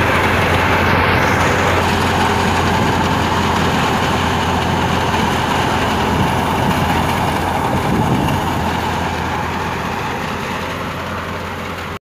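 Wheat thresher running: a steady, loud machine drone, with a low hum under a broad rushing noise, slowly fading over the last few seconds.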